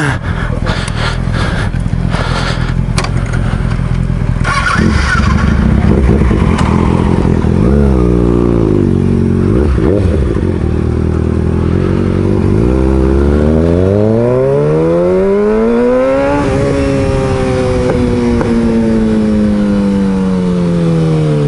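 Motorcycle engine running steadily with some knocking and clattering in the first few seconds, then pulling away. Its pitch rises and dips briefly, then climbs for a few seconds as it accelerates and slowly falls as it eases off.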